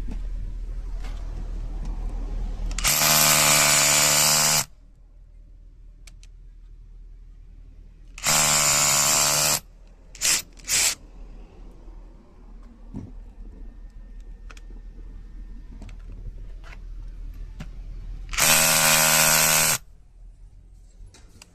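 Makita HR244D 18 V cordless rotary hammer (hammer drill) switched on in short bursts during a function check: three runs of about one and a half seconds each and two quick trigger blips, with a steady pitched motor whine that stops sharply each time. Faint handling clicks are heard between the runs.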